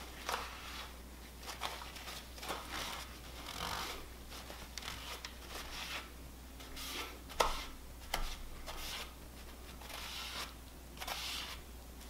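Shop rag rubbing and wiping over the aluminium bearing saddles of an engine bed plate while cleaning it: a string of short scuffing rubs, with one sharp light knock about halfway through.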